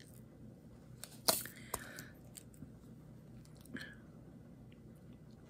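Scattered small plastic clicks and ticks: resin diamond-painting drills shifting in a plastic sorting tray and being picked up with a drill pen. The sharpest click comes about a second in.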